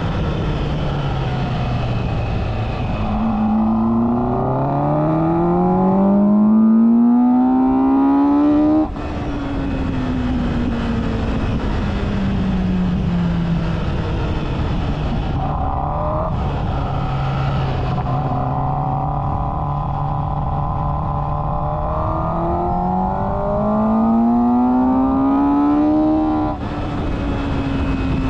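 MotoGP racing motorcycle engine heard from on board at full racing speed. The engine note climbs hard under acceleration, then cuts back about nine seconds in and falls away slowly as the bike slows for a corner. It holds steady mid-corner and climbs again before backing off near the end.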